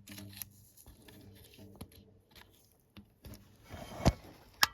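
Faint handling noise with scattered small clicks, then two sharp clicks near the end.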